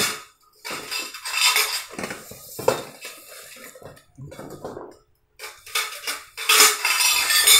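Short steel playpen-frame tubes clattering and clinking against one another as they are taken out of a cardboard box. The clatter comes in several bouts, with a brief lull about five seconds in.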